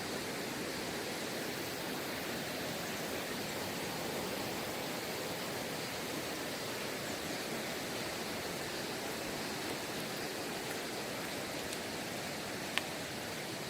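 Steady rushing of a mountain valley stream, with a single sharp click near the end.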